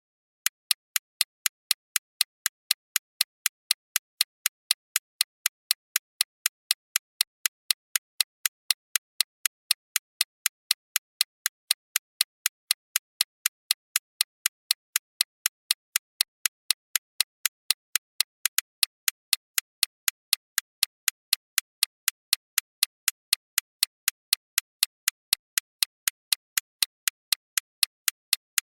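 Time-bomb timer ticking: sharp, even ticks at about three a second, starting about half a second in after silence.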